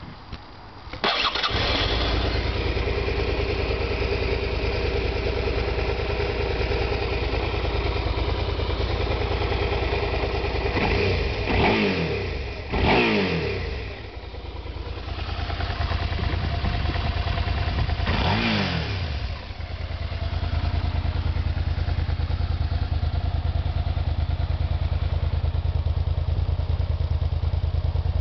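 Suzuki SV650S's V-twin engine starting about a second in and settling to idle. It is revved twice in quick succession around the middle and once more a few seconds later, each time falling back to idle.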